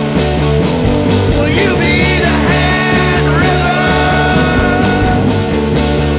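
Rock background music with a steady beat, and a sliding high melody line coming in about one and a half seconds in.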